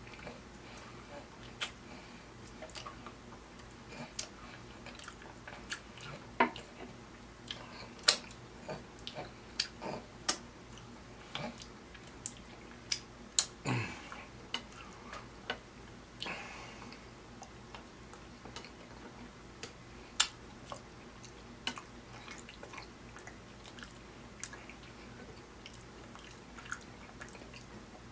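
Close-miked mukbang eating sounds: a man chewing and smacking his lips over ribeye steak, with many short, sharp wet clicks at an irregular pace.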